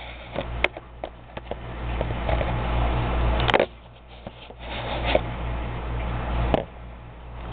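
Low steady hum under rubbing and rustling, with a few sharp clicks, the loudest about three and a half seconds in, each followed by a brief drop in the sound.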